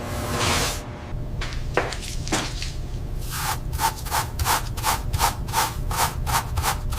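A hiss in the first second, then a regular run of scraping, rubbing strokes, about three a second, over a low steady hum.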